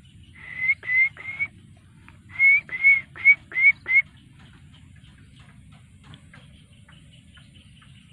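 Baby macaque cooing: eight short whistle-like calls in two runs, three then five, each rising slightly in pitch.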